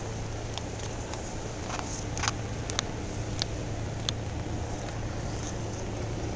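Background ambience of a large indoor gallery hall: a steady low hum and hiss, with a few faint sharp clicks scattered through the middle.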